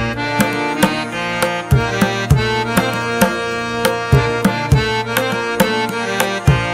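Background music: a steady drum beat under held melodic notes.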